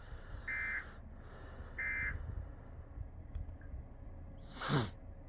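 Emergency Alert System end-of-message data bursts: two short warbling digital chirps about a second apart, closing the required weekly test. Near the end a brief loud sound sweeps sharply down in pitch.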